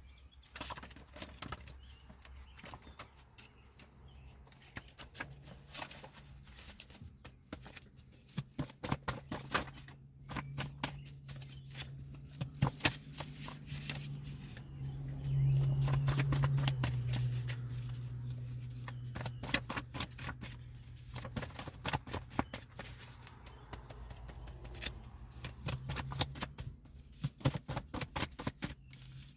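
Many small, irregular clicks and taps, in quick runs at times, over a low steady hum that swells for a few seconds around the middle.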